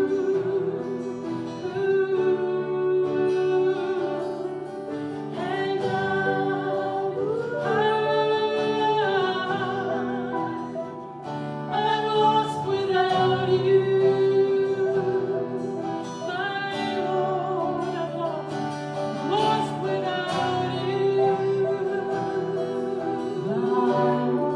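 Worship song: a voice singing sustained, gliding melody lines over steady instrumental accompaniment.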